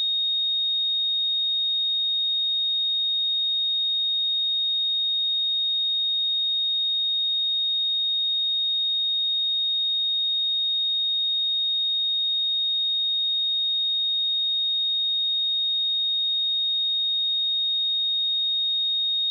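A steady, unchanging 3721 Hz sine-wave test tone: a single pure high-pitched pitch held at constant level, used for testing speakers and headphones.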